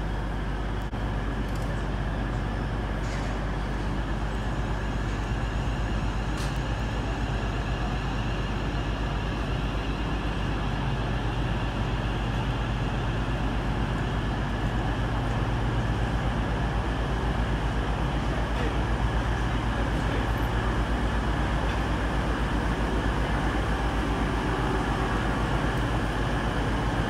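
Diesel engines of an East Midlands Railway Class 222 Meridian running as it pulls slowly into the platform. It is a steady low drone under the station roof that grows a little louder in the second half.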